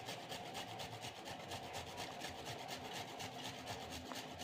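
Fresh ginger being grated on a hand grater: faint, quick, evenly repeated rasping strokes.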